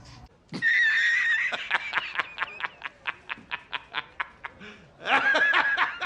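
High-pitched laughter: a squeal followed by a long run of quick, evenly spaced giggling pulses, about four or five a second, with a second squealing burst near the end.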